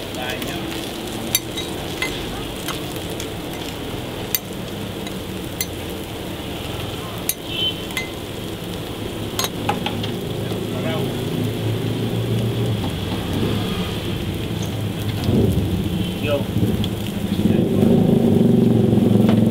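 Beef patties and bacon sizzling on a flat-top griddle, a steady frying hiss with scattered sharp clicks of a metal spatula against the plate. A low rumble grows louder over the last few seconds.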